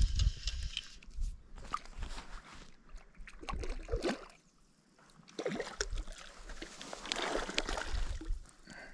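A hooked cutthroat trout splashing and thrashing at the lake surface, then water sloshing around a landing net dipped in to land it. The splashing comes in irregular spurts, going almost quiet briefly just before the middle and busiest in the last two seconds.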